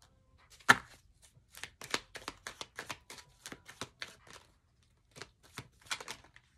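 Cards being shuffled and handled by hand: a run of irregular sharp clicks and taps, with one louder snap just under a second in.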